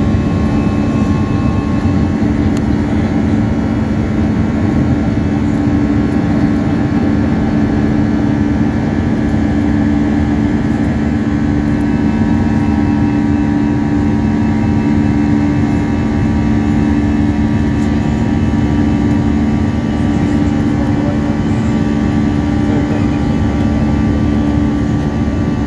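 Jet airliner's engines at climb power heard inside the passenger cabin: a loud, steady drone with a constant low hum and fainter higher tones, unchanging throughout.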